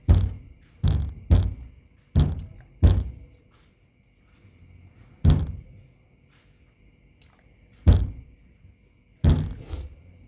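Dull thuds of hand blows on a person's back or body during a massage, about eight in all: five in quick succession in the first three seconds, then three more spaced a couple of seconds apart.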